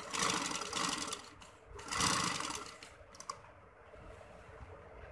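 Sewing machine stitching piping onto fabric in two short runs of about a second each, then stopping, with a couple of light clicks shortly after.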